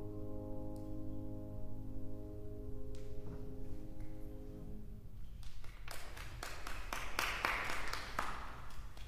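A grand piano's held chord rings and dies away over the first three seconds. About halfway through, paper rustles and crackles as the pages of the score on the music stand are turned.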